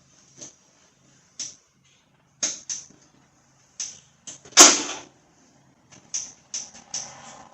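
A string of irregular sharp clicks and knocks from hands working on a riding mower, with one louder clunk about four and a half seconds in.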